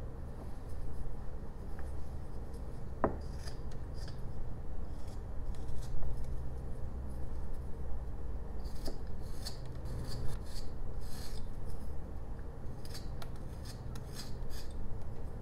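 Carving knife slicing small shavings from a jelutong block: a series of short, crisp cuts and scrapes, a few at first and then many in quick succession from about nine seconds in, with one sharp click a few seconds in. A low steady hum runs underneath.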